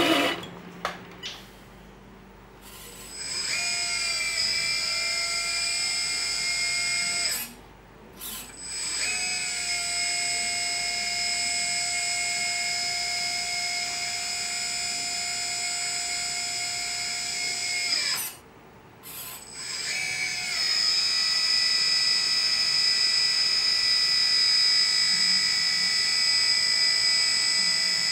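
Electric hydraulic pump of a 1/14-scale LESU MAN 8x8 RC truck whining steadily as it drives the tipper ram, raising and lowering the dump bed. It runs in three stretches, stopping briefly about 7 seconds in and again about 18 seconds in.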